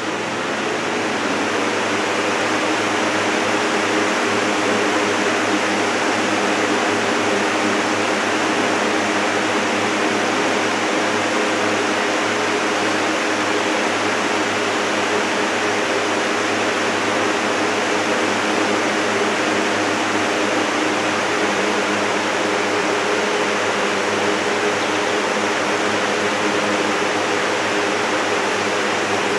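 Steady rush of blown air with a low steady motor hum under it, from a running electric fan.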